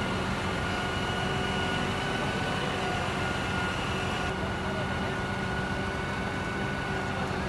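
Steady mechanical drone with a constant high whine over a low rumble, the sound of the crane truck's engine and hydraulics running as the basket is moved.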